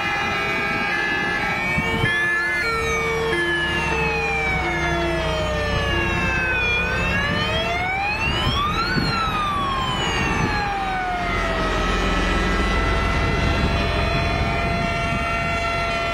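Fire truck sirens on a passing convoy: a slow wail that rises and falls in pitch, with a two-tone siren alternating between two notes about every half second for the first several seconds. Truck engines rumble beneath.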